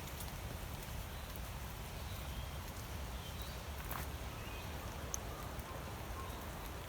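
Steady rain falling, an even hiss with a low rumble underneath and a few sharp drips ticking, and faint short bird chirps now and then.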